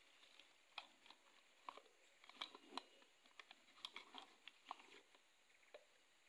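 Faint, irregular clicks and crackles, a few a second, from a rubber tapper handling a latex collecting cup over a bucket and moving about in dry grass and leaf litter.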